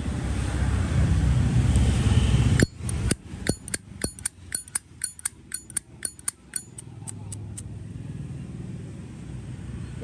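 Zippo lighter's hinged lid on its original hinge, flicked open and snapped shut over and over: a quick, uneven run of about twenty sharp metallic clicks and clinks. Before it, a loud low rumble cuts off abruptly.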